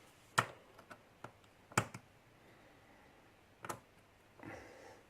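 A few sharp, scattered clicks of small metal lock-gutting tools being picked up, handled and set down on a hard surface. Three are louder than the rest.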